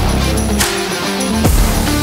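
Background music: an electronic track with a steady beat, about one hit a second.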